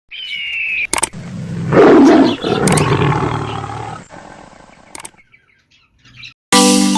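A short high whistle gliding down, then a loud animal roar lasting about two seconds. Bright chiming music starts near the end.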